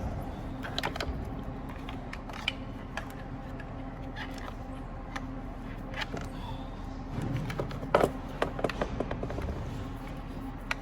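Scattered clicks and knocks of plastic and metal parts being handled, with a cluster of sharper knocks about eight seconds in, as a replacement blower motor is fitted into its housing; a steady low hum runs underneath.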